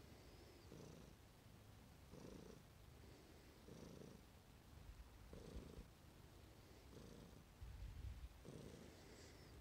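Domestic cat purring faintly, the purr swelling and easing about every second and a half with its breaths.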